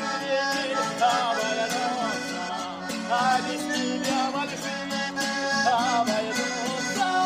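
Music with an accordion-like lead melody over a steady beat.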